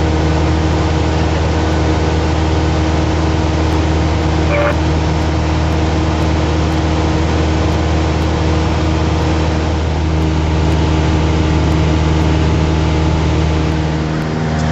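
Light aircraft's piston engine and propeller droning steadily, heard inside the cabin in cruise flight.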